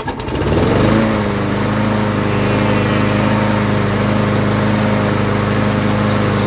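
Briggs & Stratton push-mower engine pull-started and catching at once: it revs up over the first second, then runs steadily at one speed.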